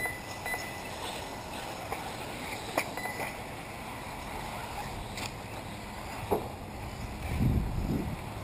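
1/10-scale 4WD RC off-road buggies racing on a dirt track: a steady wash of motor and tyre noise with a few sharp knocks, and a low rumble near the end.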